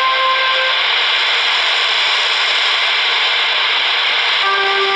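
Shortwave broadcast through a Happy CS-106 portable receiver's speaker: steady, loud static hiss with a few music notes fading in and out near the start and again near the end.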